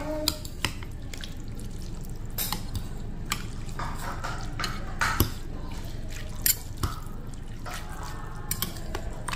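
Metal spoon and fork stirring noodles and broth in a soup bowl: soft sloshing of the soup with light, irregular clinks of metal against the bowl.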